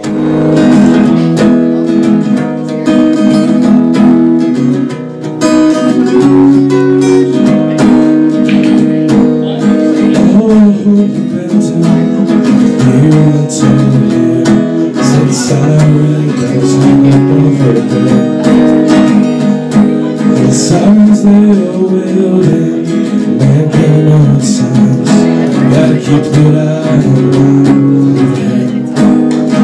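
Acoustic guitar strummed steadily through a chord progression, a song's instrumental intro before the vocals come in.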